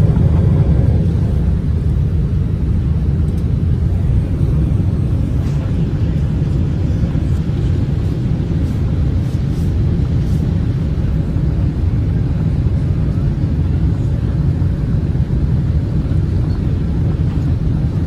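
Steady low rumble of a Boeing 747-8 airliner in flight: engine and airflow noise heard from inside the passenger cabin.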